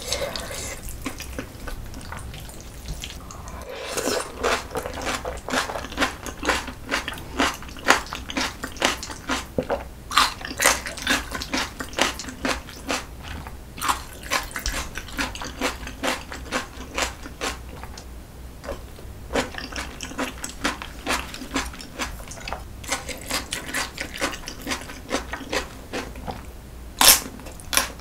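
Close-miked mouth sounds of someone eating jjajangmyeon: wet slurping and chewing of sauce-coated noodles, a dense run of short smacks and clicks. Near the end comes one sharper, louder bite, from a piece of pickled yellow radish.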